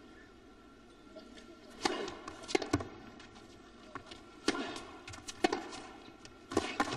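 Tennis rally: rackets striking the ball and the ball bouncing on the court, a sharp pop about every second, starting with the serve about two seconds in.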